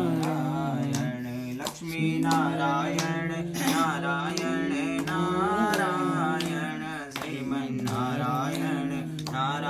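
A male priest chanting Sanskrit puja prayers in a sing-song melody, with long held notes and pitch slides, and a few short clicks now and then.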